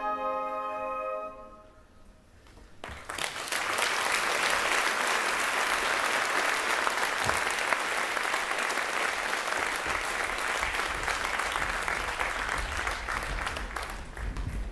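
A held final note of the music fades out in the first second or so. After a brief hush the audience applauds for about ten seconds, tailing off near the end.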